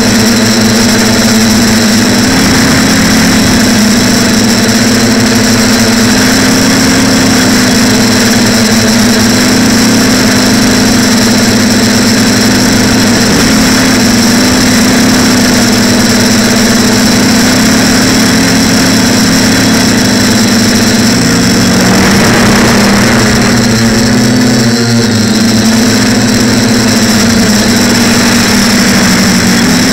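A TBS Discovery quadcopter's electric motors and propellers buzzing loudly, picked up by the camera mounted on the frame. The buzz wavers slightly up and down in pitch as the flight goes on.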